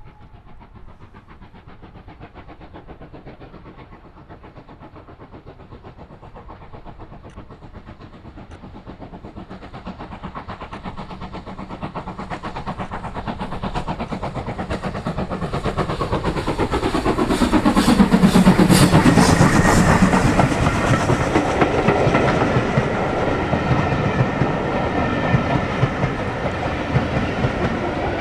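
Steam locomotive working a passenger train toward and past, its exhaust beats growing steadily louder as it approaches and loudest as it passes about two-thirds of the way through, followed by the coaches rolling by on the rails.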